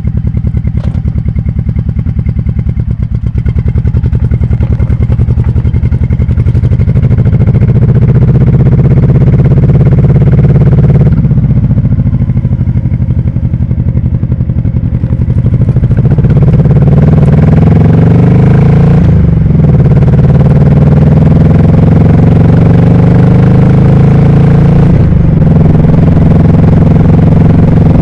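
1998 Honda Shadow VT1100T's V-twin engine running loud on the road, pulling up through the gears: its pitch climbs, then drops back at each of about three gear changes.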